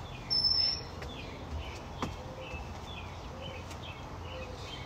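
Birds chirping, with one short, high, steady whistle-like tone about a third of a second in that stands out over the softer repeated chirps.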